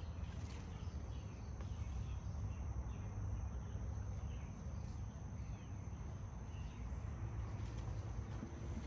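Outdoor evening ambience: a steady, high-pitched insect drone over a low wind rumble on the microphone, with a few faint short chirps.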